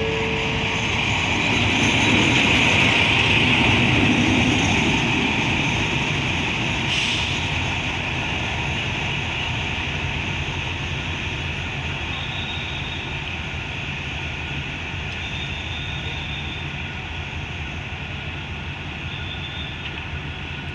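Diesel locomotive engine running as the locomotive moves slowly along the platform. It is loudest a few seconds in, then settles into a steady drone that slowly fades.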